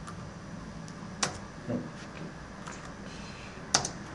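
Scattered computer keystrokes and clicks over a faint steady hum: a few light taps, a sharp click about a second in followed by a duller knock, and a sharp double click near the end.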